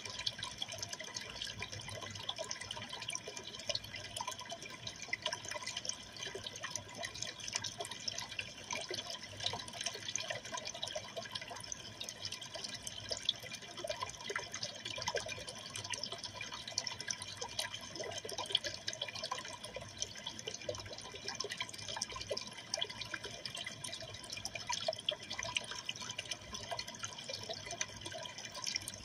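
Steady trickling and splashing of aquarium water, with many small drips and plinks, as water circulates in the tank.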